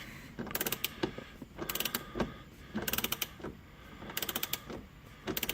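Socket ratchet clicking as it spins the loosened 21 mm steering-wheel nut off its shaft: short bursts of rapid clicks on each back-stroke, about one burst every second or so.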